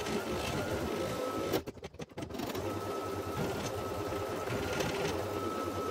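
Brother SE1900 embroidery machine stitching a placement line through fabric and batting in the hoop: a steady, rapid mechanical whir with a thin high whine. It breaks off for under a second about a second and a half in, then carries on.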